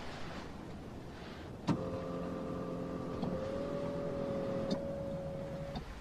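A car's small electric motor starts with a click about two seconds in and runs with a steady whine. The whine lifts slightly in pitch partway through, and the motor stops with a click near the end.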